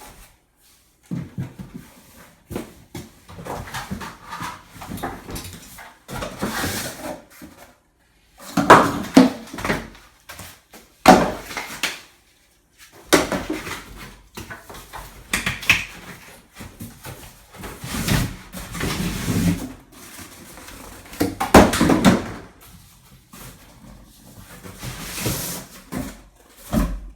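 Cardboard box and packing material being handled: rustling, scraping and knocks in irregular bursts, with several loud bangs, as a heavy pressure washer unit is pulled out of its carton.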